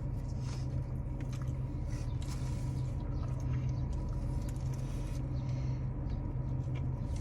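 Chewing and biting into a dry chicken sandwich: small scattered wet mouth clicks over a steady low hum.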